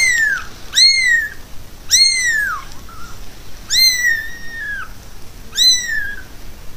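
A young kitten meowing over and over, five high calls in a row. Each call rises briefly and then falls away, and there is a longer pause in the middle.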